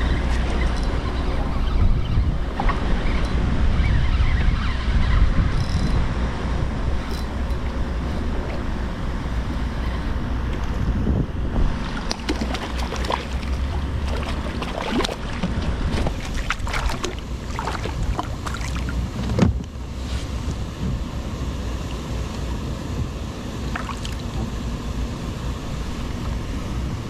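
Wind buffeting the microphone over water lapping against a kayak, with a run of splashes and knocks in the middle as a hooked fish thrashes at the surface, the loudest thump about two-thirds of the way through.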